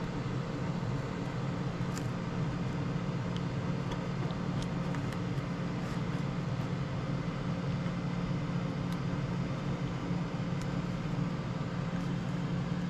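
Steady low mechanical hum of room machinery, with a few faint ticks scattered through it.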